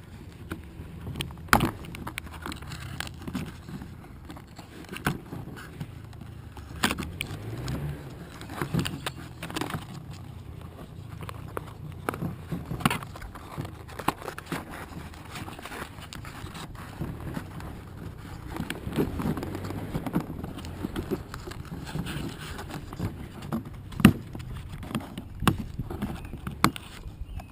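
Irregular clicks, taps and rustles as a wooden toy engine and its packaging are handled, with a few sharper knocks, over a low steady rumble.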